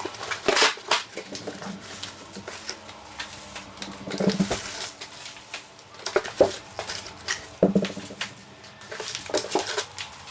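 Small potted saplings in 1-quart nursery containers being unpacked and set down: irregular knocks and clatter of the pots, with rustling of packaging in between.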